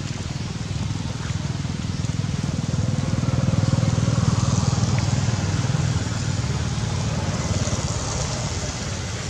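Heavy rain hissing, under a low rumble that swells about three seconds in and eases off again around six seconds.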